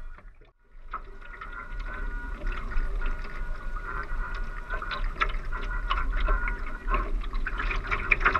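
Water rushing and splashing along the hull of a 2-metre radio-controlled ACC One Design model yacht under sail, heard close up from a camera on its deck, with a steady high whine underneath. The sound drops almost to silence for about half a second near the start, then comes back.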